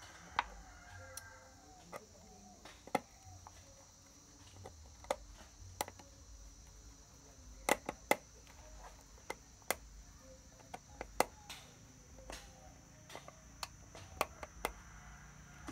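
Small screws being driven by hand to fix a USB audio board into a speaker-box panel: irregular sharp clicks and taps of the screwdriver and parts over a low background.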